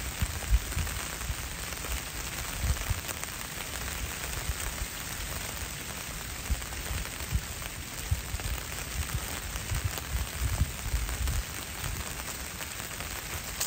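Steady rain falling on wet leaves and the forest floor, an even hiss, with irregular low thuds scattered through it.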